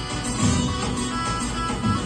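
Kurdish folk melody played on a Korg arranger keyboard in a plucked-string voice, over a steady bass-and-drum accompaniment beat.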